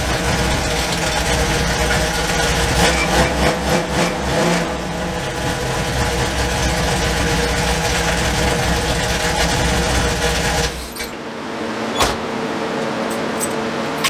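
Mopar small-block stroker V8 in a Dodge D100 idling steadily and running well with its exhaust and vacuum leaks fixed, then switched off about eleven seconds in. A single sharp click follows about a second later.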